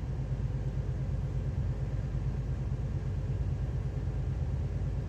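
Steady low drone of a lorry's diesel engine and road noise, heard inside the cab while cruising.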